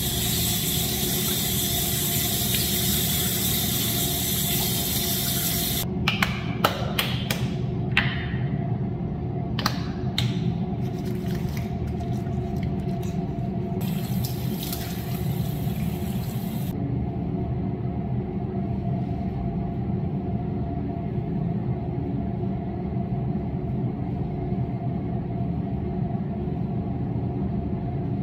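Water running from a bathroom tap into a sink for about six seconds, then a few sharp clicks and knocks at the sink, then water running again briefly, over a steady low hum in a small tiled room.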